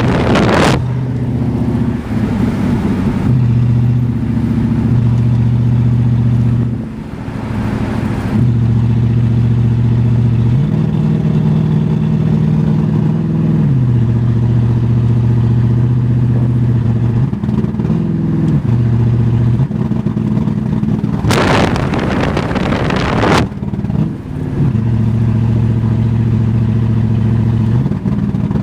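Mercedes 380SL V8 engine running under way, its pitch rising and falling in steps several times as engine speed changes, with a brief rushing noise about three-quarters of the way through.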